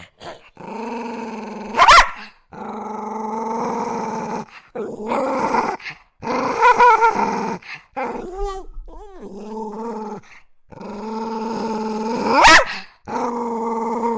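Small dog growling in long drawn-out stretches, with a sharp loud bark about two seconds in and another near the end.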